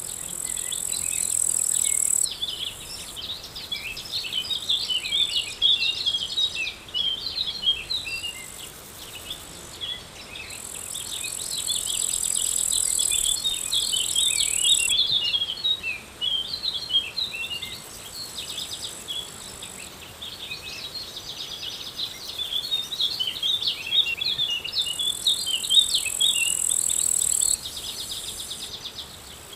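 Outdoor nature ambience of birds chirping and twittering continuously, over an insect's high, steady buzz that starts and stops abruptly in bouts of a few seconds.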